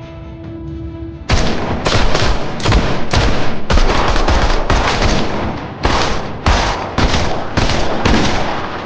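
Heavy gunfire in a firefight: shots and bursts come thick and fast, starting suddenly about a second in and dying away near the end, over a bed of dramatic music.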